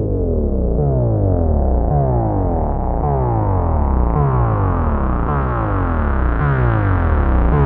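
Moog Minimoog analog synthesizer playing a repeating pattern of notes that glide downward in pitch, about one a second, over a held low bass drone. The tone grows steadily brighter across the passage.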